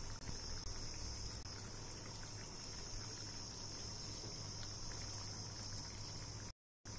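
Shukto, a vegetable curry in a milky gravy, simmering in a kadai on a gas stove: faint bubbling and ticking under a steady hiss. The sound cuts out briefly near the end.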